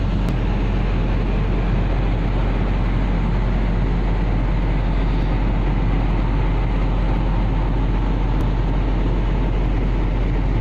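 Steady, even drone of a ship's machinery, with a deep hum underneath.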